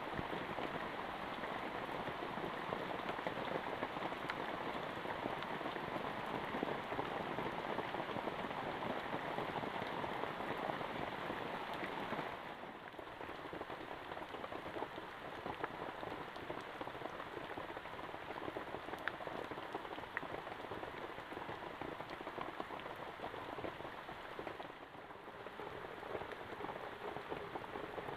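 Heavy rain falling steadily, a dense hiss with many small drop patters, a little softer after about twelve seconds.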